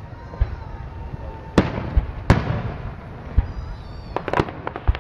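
Aerial fireworks shells bursting: a series of sharp bangs with echo, then a quick string of crackling reports near the end.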